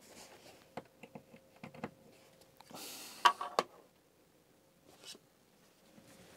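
Hands handling small plastic electronic devices and their cable: scattered light clicks, then a short rustle with a sharp cluster of plastic clicks about three seconds in, and one more click around five seconds. A faint steady hum runs underneath.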